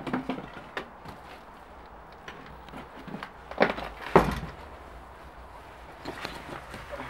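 Footsteps on rubble and broken roof tiles: scattered crunches and knocks, with two louder thuds a little after halfway.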